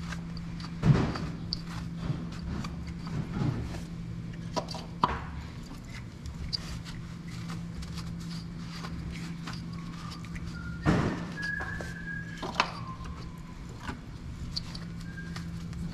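Hand work in a car's engine bay: scattered knocks and taps as parts are wiped with a rag and handled, the sharpest about a second in and again near eleven seconds, over a steady low hum.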